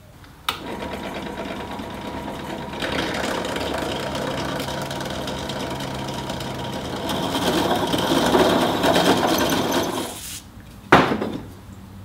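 Pedestal drill press running and a twist drill cutting through a metal base plate, enlarging the hole to 14 mm. The motor starts with a click, the cutting noise grows louder as the bit bites, and it all stops about ten seconds in. A single sharp knock follows about a second later.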